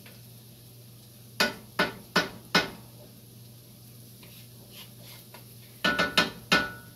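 A cooking utensil knocking against a metal pot: four sharp knocks in quick succession about a second and a half in, then another quick run of knocks near the end with a brief metallic ring.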